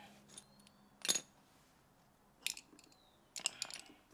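Sharp metallic clinks and rattles of the pool heater's sheet-metal cover and parts being handled, about four separate clinks a second or so apart, the loudest about a second in.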